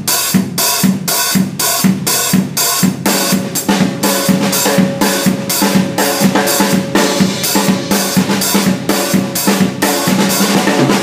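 Drum kit playing an up-tempo soca groove: bass drum steady on every beat, about twice a second (four on the floor), with a strum-like pattern of snare strokes in the left hand over it.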